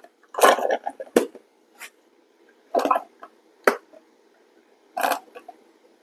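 A series of short plastic clicks and knocks from handling a single-serve coffee maker: a plastic cup set on its drip tray, the lid closed and the machine switched on.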